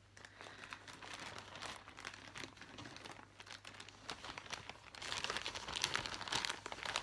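Clear plastic bag crinkling and rustling in the hands, an irregular crackle that grows louder about five seconds in.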